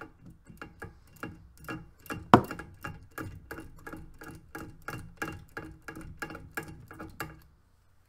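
Ratcheting service wrench clicking about four times a second as it backs out the outlet pressure test plug of a gas valve, with one sharp, louder snap about two seconds in. The clicking stops about seven seconds in.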